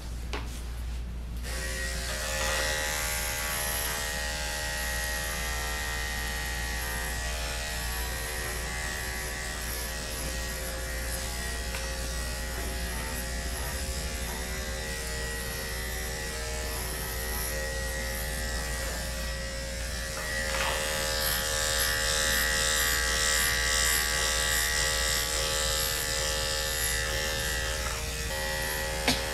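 Andis corded dog-grooming clipper with a #7 blade running steadily as it shaves down a dog's coat, a continuous electric buzz. The buzz grows louder and brighter about twenty seconds in, and there is a single sharp click near the end.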